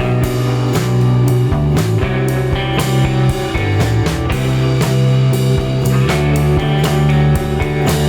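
Background music: a rock track with guitar and a drum kit keeping a steady beat.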